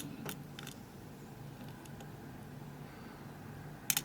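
Faint metallic clicks of a lock pick being worked into a Euro cylinder's keyway: a few ticks near the start and a quick cluster of clicks near the end, over a low steady hum.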